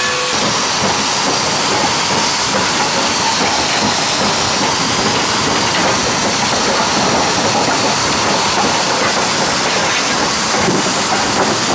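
Steady hiss of steam from a 1909 steam locomotive rolling slowly, heard close beside its driving wheels.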